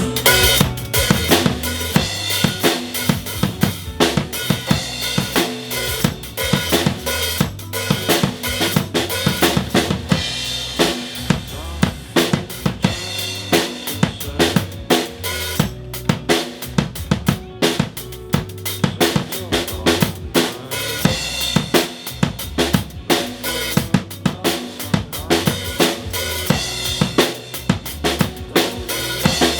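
Drum kit played in a driving rock beat over the song's recorded backing music: steady kick and snare strokes with cymbals, several hits a second.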